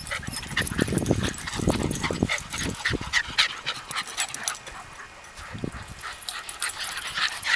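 Miniature schnauzers romping together on grass, making a busy, irregular run of short dog noises and scuffles with no clear barks. The sounds are densest in the first few seconds.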